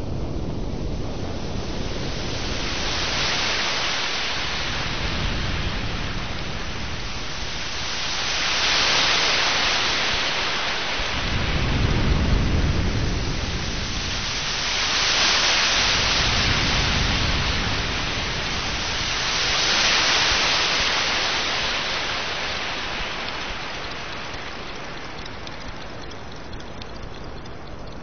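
Sea waves washing in and drawing back, about five slow swells of hissing surf with a low rumble under the bigger ones, dying down near the end.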